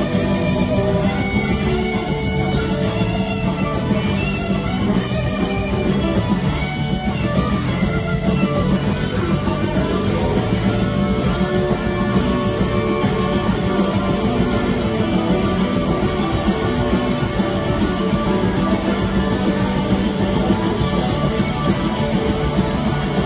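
Live rock band playing an instrumental passage: electric guitars over two drum kits and the rest of the band, recorded from the audience in the hall.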